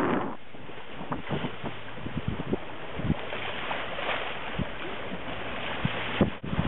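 Wind and water rushing past a sailing boat under way, with scattered short knocks and splashes.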